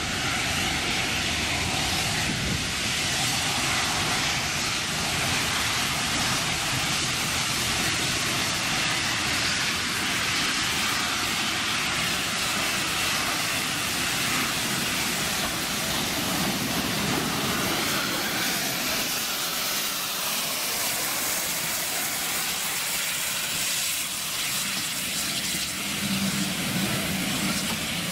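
Steam locomotive running tender-first through a station, with a steady hiss of steam. Its coaches roll past near the end.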